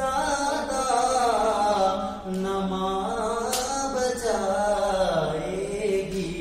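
A man singing a naat solo, drawing out long held notes that bend up and down in pitch.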